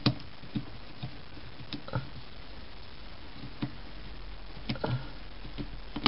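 Light, scattered clicks and taps of a small screwdriver working tiny screws into a tablet's circuit board.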